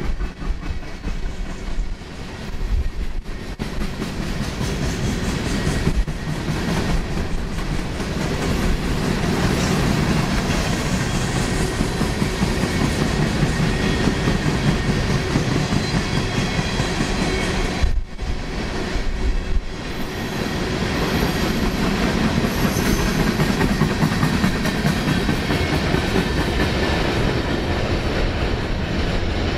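Empty coal hopper cars rolling past: a steady rumble of steel wheels on rail, with a rapid run of clicks and clanks as the wheels pass over the rail joints. A brief dip in the sound comes about two-thirds of the way through.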